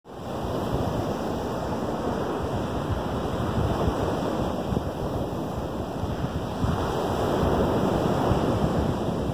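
Small waves breaking and washing up onto a sandy Lake Michigan beach as a steady surf wash, growing a little louder in the second half.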